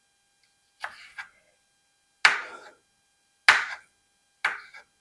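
Chef's knife slicing green bell pepper on a wooden cutting board: about five separate knocks of the blade hitting the board, roughly a second apart, with unsteady spacing.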